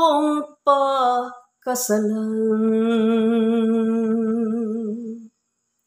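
A woman singing a Tagalog ballad unaccompanied: two short phrases, then a long held note with a slight vibrato that stops a little after five seconds in.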